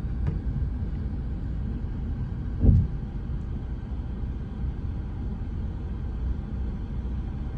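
Ford Transit van engine idling with a steady low rumble, heard from inside the cab, with one brief louder low bump a little under three seconds in.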